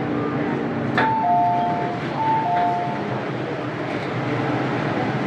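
MTR M-train running noise inside the car. About a second in, a two-note descending ding-dong chime sounds twice over the train's PA, the chime that comes before an onboard announcement.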